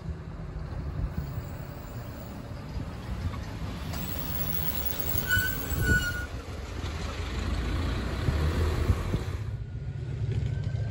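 A Meitetsu train running past with a low rumble that swells through the middle. A brief high wheel squeal comes about five seconds in.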